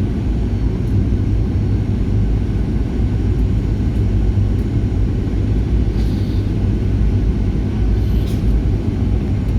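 Airliner cabin noise aboard a Boeing 737 in flight: a steady low rumble of engines and airflow.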